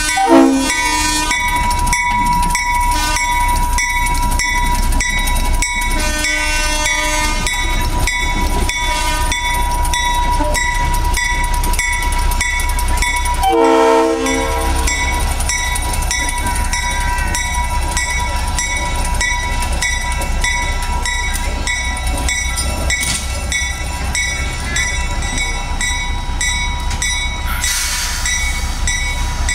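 Small diesel locomotive USS 45 running past at low speed, its engine rumbling steadily while the wheels click over the rail joints. Short horn blasts sound just after the start and again about halfway through.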